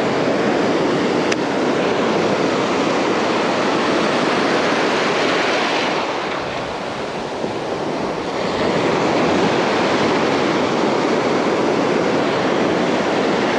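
Ocean surf breaking and washing up the sand, steady and loud, mixed with wind noise on the microphone.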